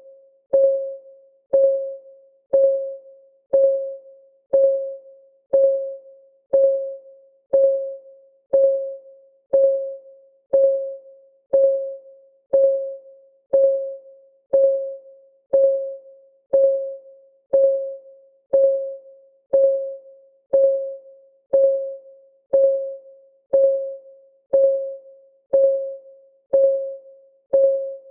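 Clock ticking sound: a steady tick about once a second, each a sharp click with a short ringing tone that dies away quickly.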